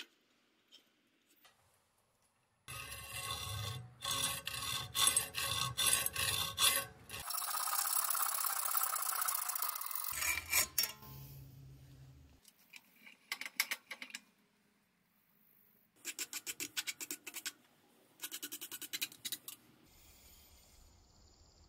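Hacksaw cutting through a copper busbar bar clamped in a bench vise: several bursts of quick back-and-forth rasping strokes, with short pauses between bursts.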